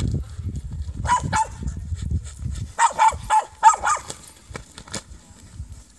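A herding dog barking in short, sharp yips: two about a second in, then a quick run of five around three seconds in. A low rumbling noise underneath dies away just before the second run.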